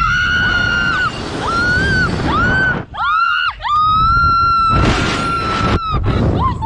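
A young woman screaming on a slingshot ride: a string of high-pitched screams, the longest held for about two seconds near the end, over wind rushing past the microphone.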